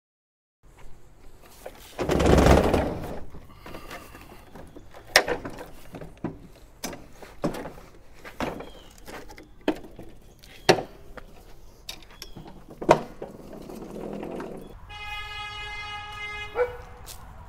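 Hands moving a Honda HRX217 push mower make a loud clatter about two seconds in, then a run of sharp knocks and clicks as the mower is handled and set down. Near the end a dog whines for about a second and a half.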